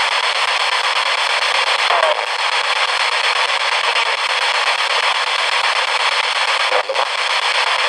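Spirit box (a radio sweeping rapidly through stations) giving a steady, loud hiss of static. A brief snippet of broadcast sound comes through about two seconds in, and the static breaks off for an instant near the end.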